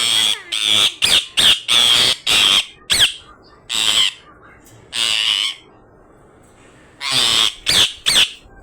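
A pet parrot squawking harshly, about a dozen loud screeches: a quick run at first, two more spaced out, then after a short pause a final burst of three. The parrot is agitated and angry.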